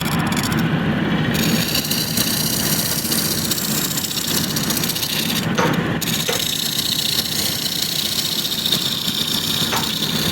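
A power tool running steadily as it cuts wood.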